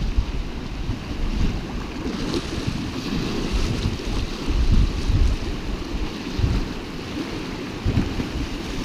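Uneven low rumbling and buffeting on a phone microphone carried in a pocket, over a steady hiss of wind and moving water aboard a river boat.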